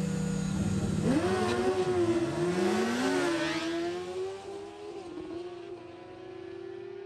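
Two sport motorcycles hold a steady engine note on the drag-strip start line, then launch about a second in. Their engines climb in pitch through several upshifts and fade as the bikes run away down the strip.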